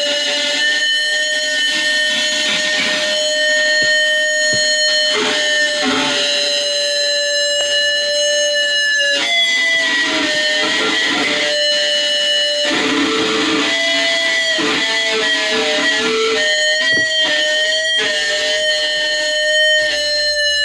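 Electric guitar feedback from a guitar held up to its amplifier: long, steady sustained tones that jump to a new pitch a few times, over ringing, strummed guitar.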